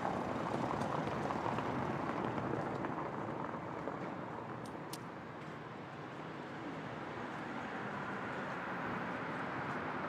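Steady background ambience of even noise, with two faint clicks about halfway through.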